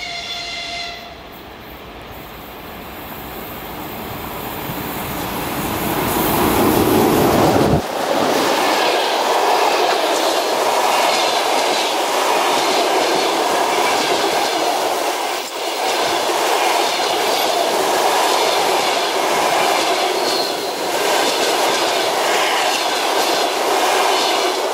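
An EP20 electric locomotive sounds a short horn blast of about a second, then the noise of the approaching train grows steadily louder. From about eight seconds in, passenger coaches run past close by with a steady loud rumble and rhythmic clatter of wheels over the rails.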